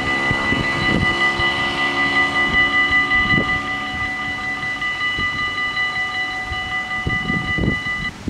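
Dutch level-crossing bells ringing steadily and loudly while the half-barriers lower, cutting off suddenly near the end as the barriers come fully down.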